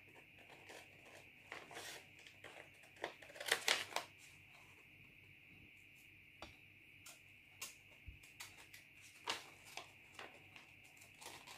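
Scissors snipping through a sheet of paper as a pattern is cut out, an irregular series of short cuts with the paper rustling, loudest about three and a half seconds in and again near nine seconds.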